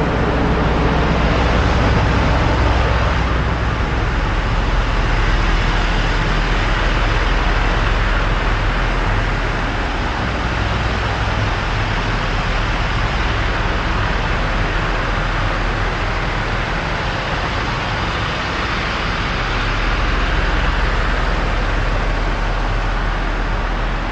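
Road traffic: a steady roar of passing vehicles, with a low engine hum in the first few seconds that fades out about three seconds in.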